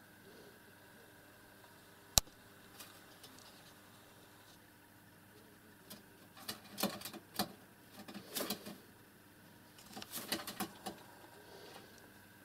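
Light scratching and tapping on a wood-and-wire cage as the animals on and in it shift about, coming in three short bursts. A single sharp click about two seconds in is the loudest sound.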